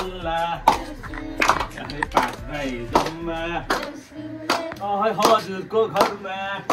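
Deusi players chanting Tihar verses in a sing-song voice over a steady percussive beat, about one stroke every three quarters of a second.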